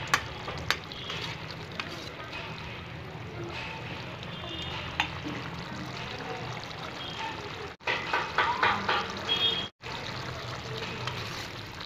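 Potato-and-cauliflower curry gravy simmering and bubbling in a pan over a steady low hum, with a few sharp clicks. About eight seconds in, a busier patch of clicking and bubbling is cut off abruptly.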